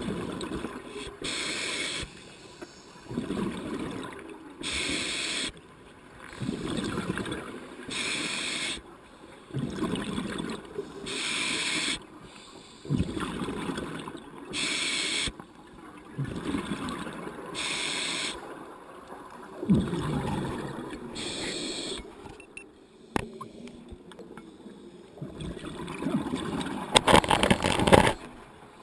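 Scuba diver breathing through a regulator at depth: a hiss on each inhale and a bubbling rush on each exhale, about every three seconds. A louder burst of noise comes near the end.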